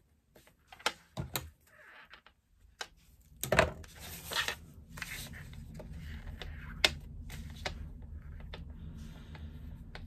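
Small handling sounds as thread ends are tied off by hand and a stiff bag panel is moved on the table: a scatter of light ticks and rustles, the loudest about three and a half seconds in. A low steady hum sets in at about the same time.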